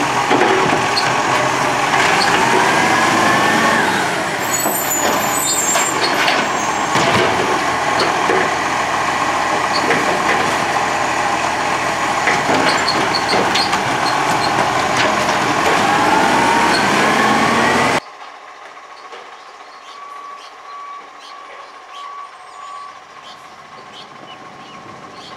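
Side-loader garbage truck working its automated arm: the engine and hydraulics run loudly with a rising hydraulic whine twice as the arm moves and clanks of the bin against the lifter. About 18 s in the sound cuts suddenly to quieter street background with the truck running further off.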